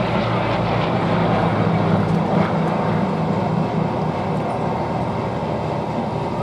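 Bristol Blenheim's twin Bristol Mercury radial engines running in a steady drone during a low display pass, fading slightly in the second half.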